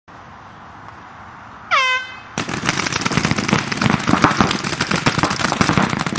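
A short air-horn blast, its pitch dropping slightly, signals the start of the paintball game about two seconds in. It is followed at once by rapid, overlapping popping of many paintball markers firing continuously.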